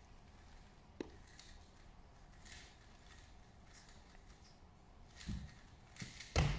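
Hushed room with a faint click about a second in and scattered faint rustling from a 3x3 speedcube being turned, then two low thumps near the end, the second louder.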